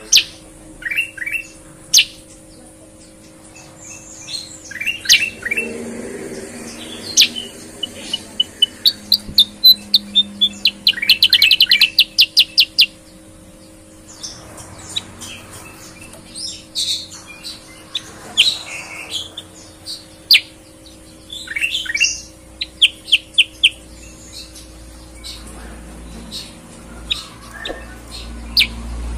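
Caged bulbuls (kutilang) singing: short, clear whistled notes and chirpy phrases, with a fast run of repeated notes about halfway through.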